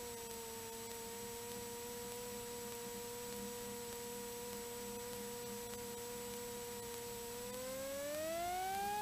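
Cessna 182T's six-cylinder Lycoming IO-540 engine running steadily at low power, heard as an even humming tone with overtones. Near the end it rises smoothly in pitch and gets louder as the throttle is opened for the takeoff roll.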